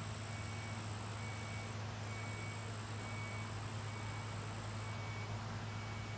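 Steady low hum under an even hiss, with a faint short high beep repeating about once a second.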